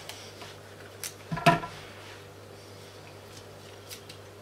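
Soft handling sounds as the tough outer layer is peeled off a halved onion by hand: a few quiet clicks and snaps, the loudest about a second and a half in, over a faint steady hum.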